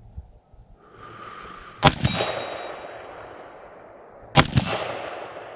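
Two rifle shots about two and a half seconds apart, each followed by a metallic ringing clang, typical of a bullet striking a steel target plate, and a rolling echo.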